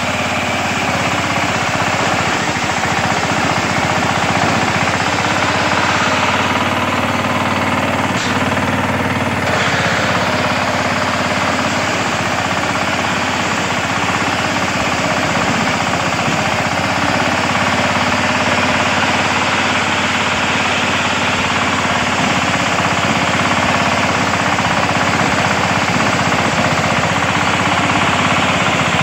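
Small engine of a walk-behind maize harvester running steadily while the machine works through standing maize.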